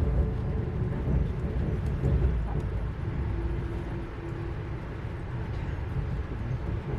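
Passenger train running along the track: a steady low rumble, with a faint hum appearing briefly about three seconds in.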